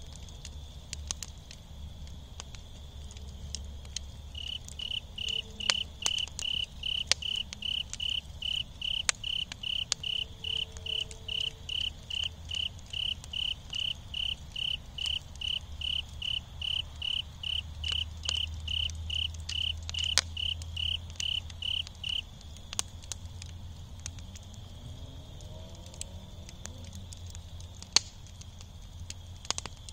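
A cricket chirping in an even rhythm, about two chirps a second, starting a few seconds in and stopping with several seconds to go, over a faint steady insect trill. Embers of a wood fire crackle with sparse pops and one sharp snap near the end.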